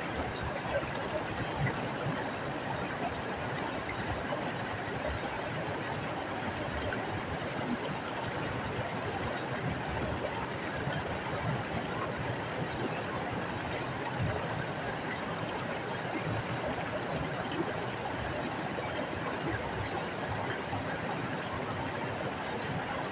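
Shallow stream rushing and splashing over rocks, a steady, even water noise.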